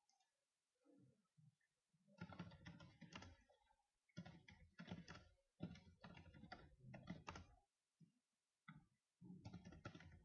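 Faint typing on a computer keyboard, a quick run of key clicks starting about two seconds in. It breaks briefly about four seconds in, pauses for over a second near the end, then resumes.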